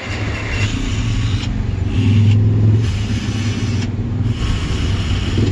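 Small electric power screwdriver motor running continuously with a low hum, its load changing a few times, as it backs out the tool's housing screws.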